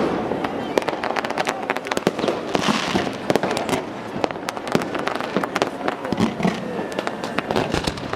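New Year's fireworks going off: a dense, continuous run of sharp bangs and crackles, many overlapping each second.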